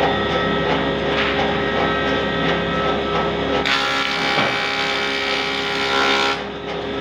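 Wood planer running with a steady hum. A board passes through the cutter head for nearly three seconds from about halfway in, and the cutting adds a louder, hissing noise. The sound then falls back to the machine running empty.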